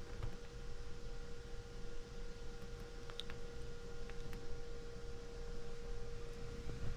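A steady hum on one held tone, with a few faint clicks about three to four seconds in.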